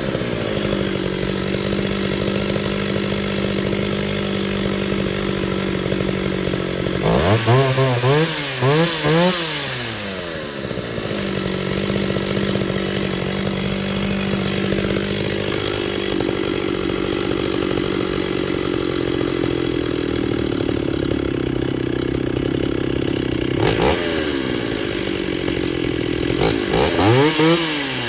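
Small two-stroke chainsaw idling steadily, revved up and back down to idle several times about seven seconds in, once briefly near 24 seconds and again near the end.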